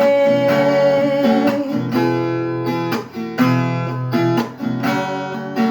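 Acoustic guitar strummed in a steady rhythm while a singer holds the last word of a sung line. The held note ends about a second and a half in, and the guitar carries on alone between verses.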